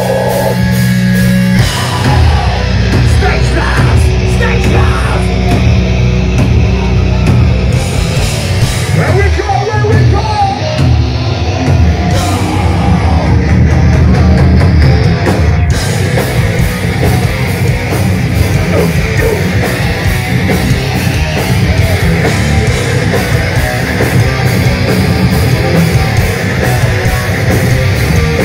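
A hardcore punk band playing live and loud: distorted guitars and bass, pounding drums and shouted vocals. The full band crashes in about two seconds in, after held low bass notes.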